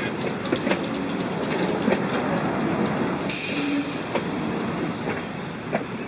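Cockle Train running behind the steam locomotive RX 207, its wheels clicking over rail joints with a steady rumble. A high hiss starts suddenly about three seconds in.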